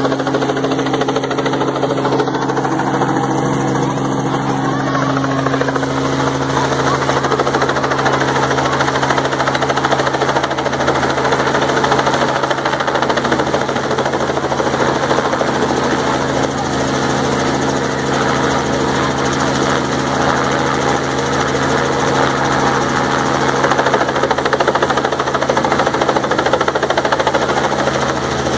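Light helicopter with a two-bladed main rotor flying low overhead, its engine and rotor making a loud, steady drone.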